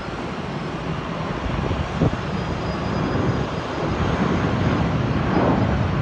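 Jet airliner's engines at takeoff power as it departs and climbs out, heard at a distance as a broad, even rumble that slowly grows louder. Wind buffets the microphone throughout, with one sharper gust about two seconds in.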